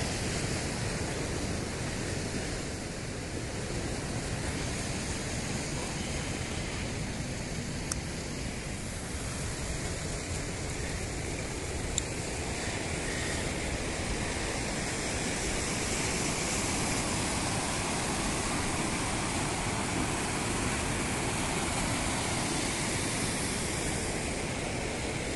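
Fast-flowing stream water rushing steadily, with a couple of faint clicks partway through.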